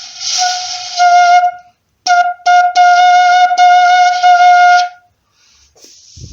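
A cane quena (caña tacuara notched flute) playing one pitch: a breathy, airy start settles into a clear held note, then after a short break a second long note on the same pitch is re-attacked several times before stopping about five seconds in.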